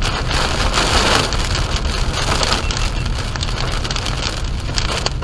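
Rain pelting a car during a tornado-producing storm: a dense, steady patter over a low rumble.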